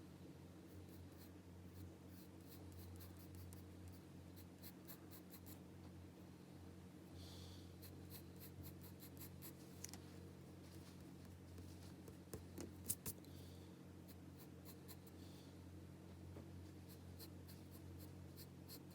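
Pencil drawing on paper: faint runs of quick, light scratching strokes, with a few sharper ticks about two thirds of the way through, over a steady low hum.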